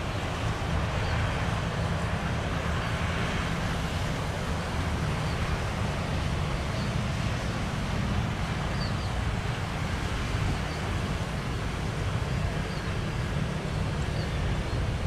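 Steady low rumble of wind buffeting the microphone, mixed with road traffic passing close by.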